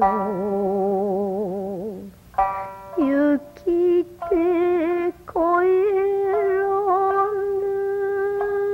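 A solo voice singing a slow song with wide vibrato. A low held note breaks off about two seconds in, a few shorter notes follow after a short pause, and a long high note is held from about halfway through to the end.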